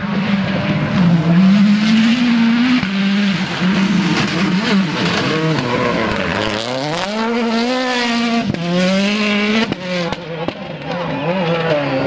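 Rally car engine at race pace, its revs climbing and falling with gear changes and braking as the car passes close, with a couple of sharp cracks about two thirds of the way through.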